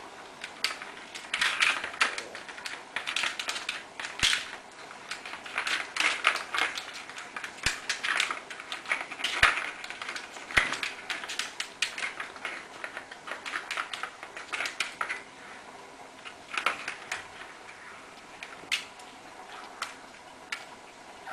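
Kittens batting a ball around a plastic ball-track cat toy: quick, irregular clicking and rattling of the ball and paws on the plastic, in busy flurries that thin out near the end.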